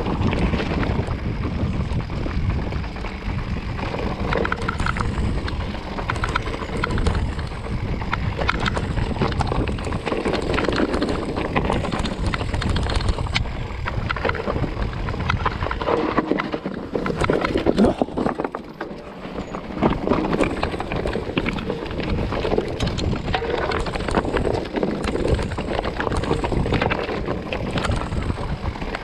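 Electric mountain bike riding fast down a loose rocky trail: tyres crunching and clattering over stones, the bike's frame and chain rattling, and wind buffeting the camera microphone. The low rumble eases briefly a little over halfway through.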